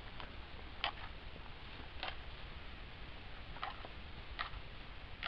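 A handful of faint, sharp clicks at uneven intervals over a low steady hiss.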